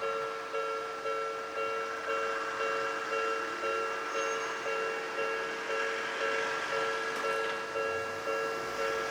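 Japanese level-crossing alarm ringing, its bell tone struck about twice a second, each strike fading before the next. A broad rushing noise swells under it from about two seconds in.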